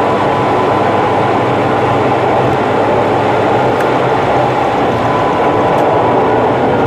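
Steady car driving noise at expressway cruising speed, tyres and engine together, sped up to about three times normal speed.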